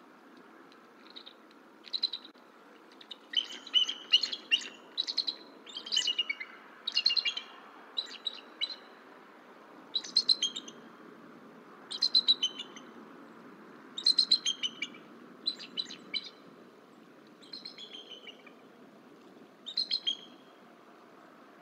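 Bald eagles calling: about a dozen bursts of high, rapid chittering notes, one every second or two.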